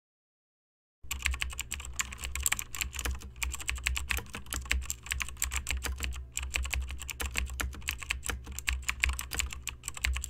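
Fast typing on a computer keyboard: a dense run of key clicks over a steady low hum. It starts about a second in and cuts off abruptly at the end.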